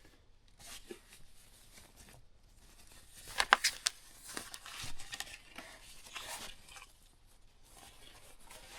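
Packaging crinkling and rustling as it is handled and pulled open, with a few sharp clicks about three and a half seconds in.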